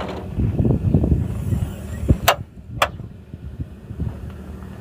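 Front grille panel of a Volvo FMX truck being unlatched and swung open: a low, uneven rattling clatter, then two sharp clicks about half a second apart.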